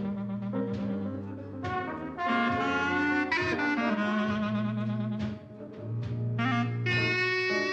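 Background instrumental music: held melody notes over a steady low bass line, dipping briefly about five seconds in.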